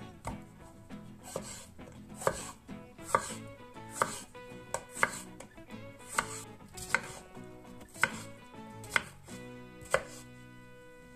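Kitchen knife slicing and dicing a red bell pepper on a wooden cutting board, the blade knocking sharply against the board about once a second.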